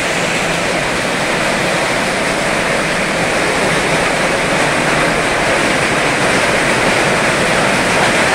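Heavy rain pouring down in a steady, dense hiss, falling on a corrugated metal roof and running off its edge onto the yard.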